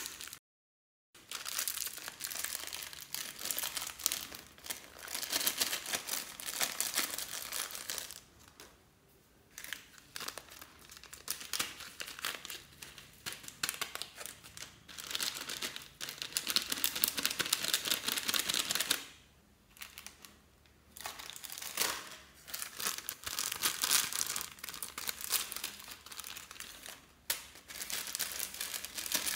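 Small plastic zip-lock bags crinkling and rustling as they are handled, cut open and emptied, in irregular bursts that pause briefly twice.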